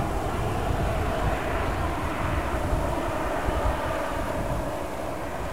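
Airbus A320 jet engines running at low thrust as the airliner taxis along the runway: a steady whine over a low rumble, easing slightly near the end.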